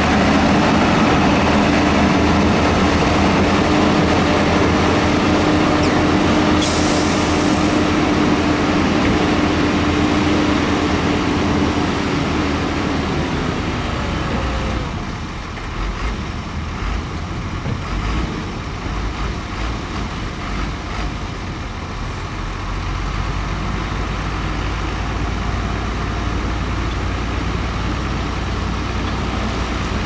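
Heavy diesel earthmoving machinery running, with a steady engine tone that winds down about thirteen to fourteen seconds in, leaving a lower rumble. A short hiss comes about seven seconds in.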